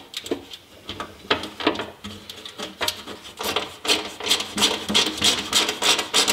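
A hand tool scraping metal in short repeated strokes, irregular at first and then about four a second, reaming out a bolt hole in the table's backing plate.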